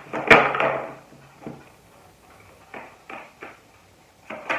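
A deck of tarot cards being shuffled by hand. A sharp snap and a short rustling riffle come near the start, then a string of lighter card flicks and slaps.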